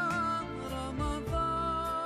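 Intro music: long held melody notes over deep drum thumps.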